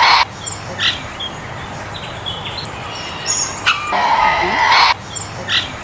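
Tasmanian devil calling: short squeaks and chirps, then a harsh, rasping screech lasting about a second, about four seconds in, over a steady hiss. The same sequence repeats as a loop.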